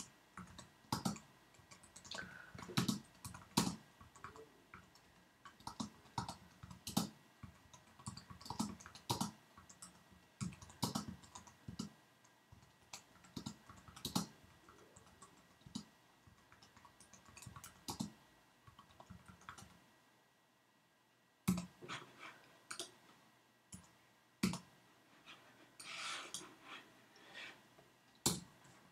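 Typing on a computer keyboard: a stream of irregular key clicks, with a pause of about two seconds roughly two-thirds of the way through.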